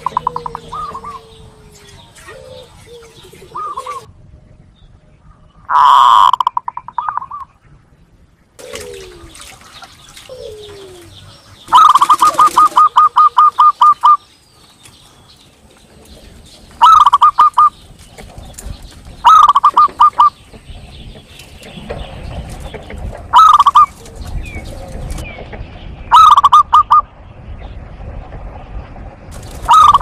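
Zebra dove (perkutut) cooing: each phrase is a strong opening note followed by a quick run of short staccato coos. The phrase repeats about seven times, every few seconds, with faint chirps between.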